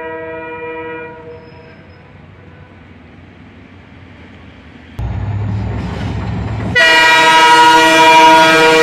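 Diesel locomotive of a passenger train passing close by, sounding its air horn. A horn note stops about a second in. The low rumble of the engine comes in suddenly about five seconds in. Then, about seven seconds in, a long loud horn blast of several notes begins and lasts to the end.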